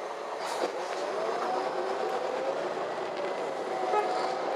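Cabin sound of a MAN Lion's City G articulated city bus under way: a steady running noise with whining tones that rise and fall in pitch, and a short sharp knock about half a second in.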